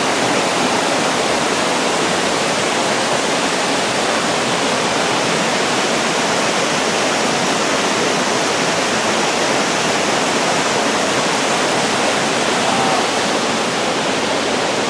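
Crabtree Falls waterfall: a loud, steady rush of falling water that stays even throughout.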